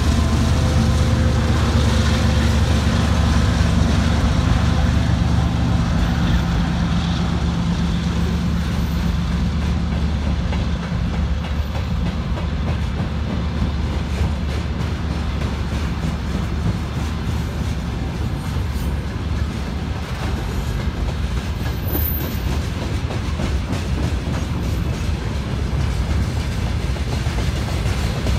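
Freight train passing: the 2TE116UD diesel locomotive's Kolomna 5D49 V16 engine drone fades away over roughly the first twelve seconds, and then the freight wagons roll across a steel girder bridge, their wheels clicking over the rail joints in a steady clickety-clack.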